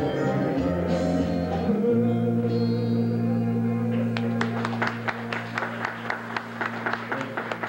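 Live band music with singing. From about four seconds in, a held chord and steady bass note sound under a quick run of sharp percussive hits.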